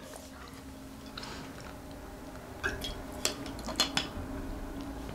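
A few light clicks and taps from a metal water bottle's screw cap being handled and screwed on, clustered about two and a half to four seconds in, over a faint steady hum.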